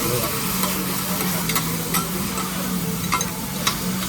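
Okonomiyaki sizzling on a hot griddle: a steady frying hiss with a handful of sharp clicks at irregular intervals and a steady low hum underneath.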